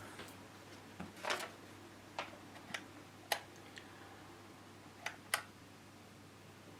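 Sharp clicks from the push-on/off knob of a Varilight programmable LED dimmer switch, about eight in all, several in close pairs, as the lights are switched on and off repeatedly to put the dimmer into its programming mode.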